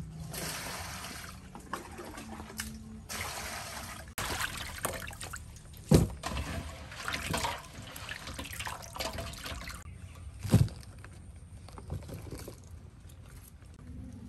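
Water poured from a dipper into a metal basin twice, then hands swishing and rubbing chillies and leaves in the water to wash them. Two louder sharp knocks come midway.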